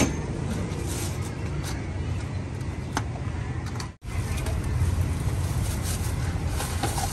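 Steady low rumble of street traffic and motorbike engines, with a few light clicks of plastic cups being handled on the cart. The sound drops out for an instant about four seconds in.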